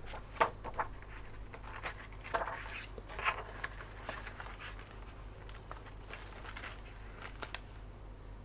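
Pages of a spiral-bound paper manual being turned and handled: a few soft rustles and light taps, over a low steady hum.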